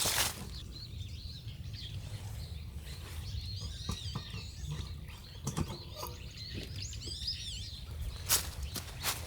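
Small songbirds chirping and twittering in short bursts, over a low steady rumble, with a few sharp cracks scattered through.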